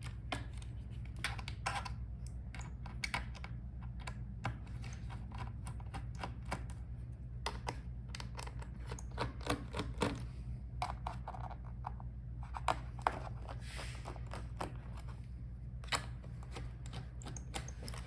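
Irregular small clicks and taps of a screwdriver and screws on a laptop's plastic bottom case as the bottom-case screws are undone, over a low steady hum.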